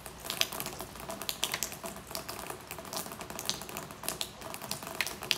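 Rain falling, with irregular drops tapping and dripping on hard surfaces in an uneven patter.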